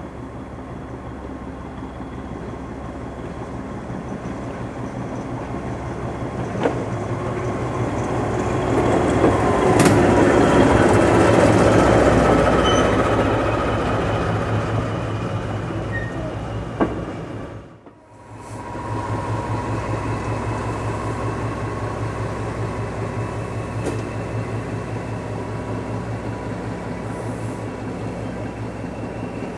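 Class 14 diesel-hydraulic shunter running as it hauls a railcar past, getting louder to a peak about ten seconds in and then fading, with a few sharp clicks as the train goes by. After a sudden break near eighteen seconds, the shunter's engine idles steadily.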